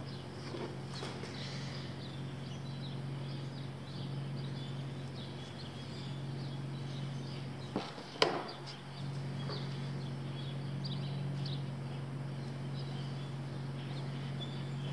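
Workshop background: a steady low hum with faint, scattered high chirps throughout, and two sharp knocks just after eight seconds, the second the louder.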